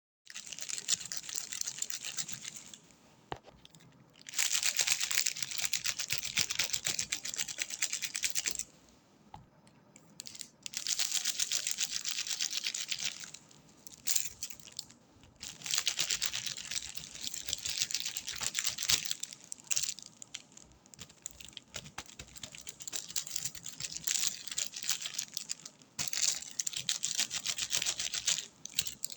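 Close-miked ASMR trigger sounds: dense crackling and scratching in bursts of a few seconds, separated by short pauses.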